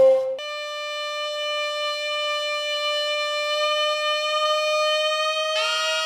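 Background score music: one long, steady held note, joined about five and a half seconds in by a lower note that fills it out into a chord.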